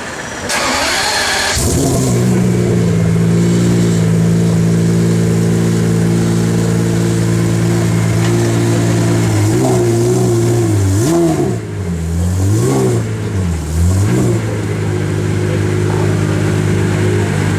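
Pagani Zonda Cinque's Mercedes-AMG 7.3-litre V12 being started: a brief cranking sound, then the engine catches and settles into a steady idle. Between about ten and fourteen seconds in it is blipped three times, pitch rising and falling with each rev, before dropping back to a steady idle.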